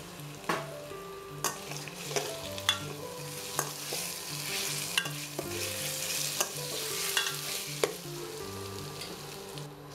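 Spatula stirring pumpkin pieces in a stainless-steel kadai, knocking irregularly against the pan, over the steady sizzle of the mustard-and-poppy-seed paste frying in mustard oil.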